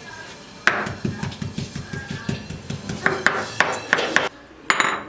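Quick run of kitchen utensil knocks and clinks, about five a second, which stops after about three and a half seconds. Two sharper clacks follow near the end.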